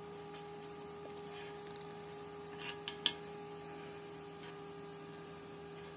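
Faint steady electrical hum, with a few soft handling sounds and one sharp click about three seconds in.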